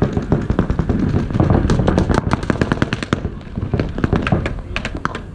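Paintball markers firing rapid strings of shots, many sharp pops a second, thick for about three seconds and then thinning out to scattered shots.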